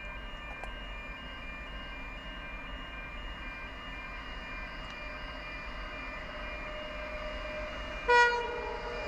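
Approaching coal train's diesel locomotive sounding its horn in one short, loud blast about eight seconds in, its pitch sagging slightly as it ends. Before it, a steady ringing tone and faint rumble.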